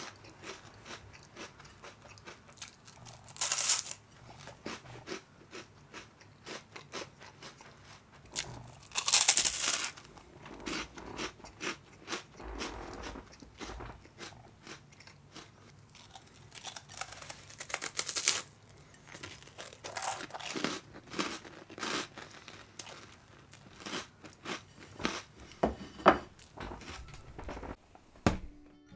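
Close-up crunching and chewing of very crisp, nearly overdone toast: a long run of crackling bites and chews, with several louder crunches and the sharpest one a few seconds before the end.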